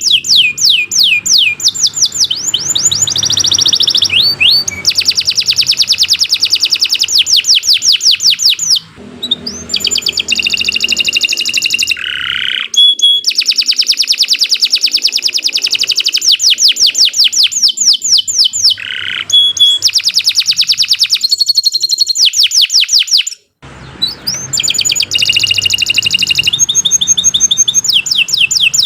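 Domestic canary singing long rolling trills of fast, high repeated notes, with brief breaks about nine and twenty-three seconds in.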